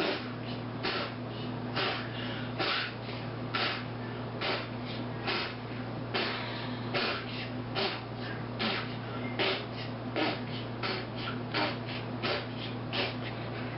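Amateur beatboxing: sharp breathy mouth-made hits in a steady rhythm, a strong one about every second with lighter ones between, over a steady low hum.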